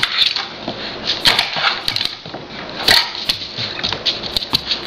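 A quick, irregular run of sharp clicks and scrapes: a standard poodle puppy pawing and scrabbling at a wall light switch.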